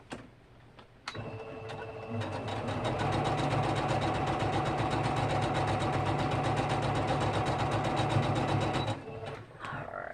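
Electric sewing machine stitching a seam. It starts about a second in, picks up speed, runs steadily with fast, even needle strokes, and stops about a second before the end.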